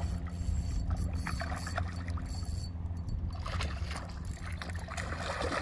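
A hooked catfish splashing at the water surface beside a boat as it is brought to a landing net, the splashing building from about halfway in. Under it runs a steady low hum.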